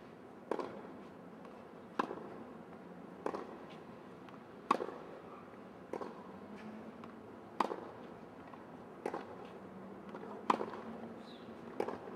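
Tennis ball struck with a racket in a steady practice rally: a sharp pop about every one and a half seconds, nine in all, a couple of them doubled by a second quick knock.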